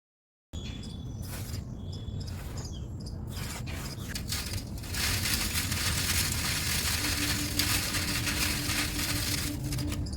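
Dry, dusty material crumbling and falling. There are scattered soft crackles at first, then from about five seconds in a dense, steady hiss of powdery texture pouring down.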